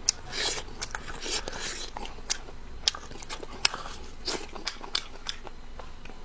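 A person biting and chewing food close to the microphone: irregular sharp clicks and short wet, crunchy bursts, a few each second.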